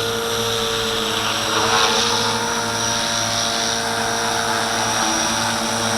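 Walkera V450D01 450-size electric collective-pitch RC helicopter hovering close to the floor: a steady whine of motor and gears with the whir of the rotor blades, briefly a little louder about two seconds in.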